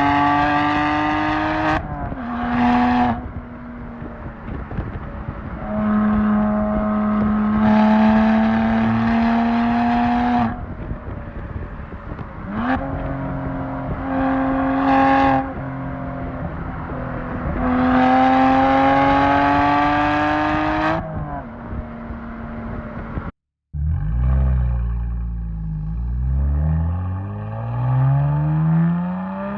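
BMW 1M Coupe's twin-turbo N54 straight-six, heard through a full Akrapovic titanium exhaust, pulling hard through the gears: revs climb in four sweeps with short breaks at the gear changes. Near the end the engine runs lower and rougher, its revs falling and then rising again.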